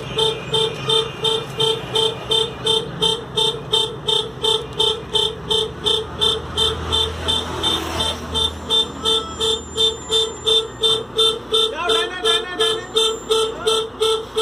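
Reversing alarm of a Tata 3118 tipper truck beeping one steady tone about twice a second as the truck backs up, over the low running of its diesel engine.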